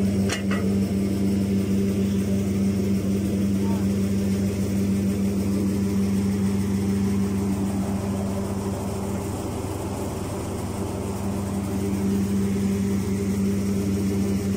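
Diesel engine of a truck-mounted crane running steadily at a constant speed while the crane lifts well pipe, with a brief sharp knock about half a second in.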